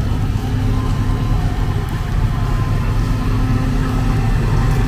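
Low, steady engine rumble of slow-rolling classic vehicles, the nearest a vintage pickup truck.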